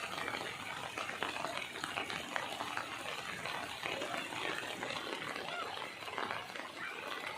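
Rain falling steadily: a continuous hiss made up of many small drop impacts.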